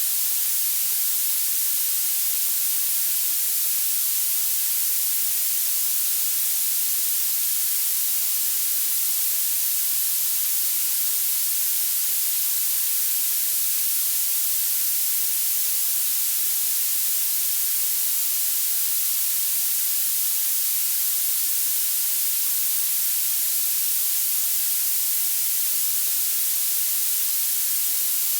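Violet (purple) noise: a steady, high-pitched hiss whose energy climbs toward the top of the range, with almost nothing in the low end.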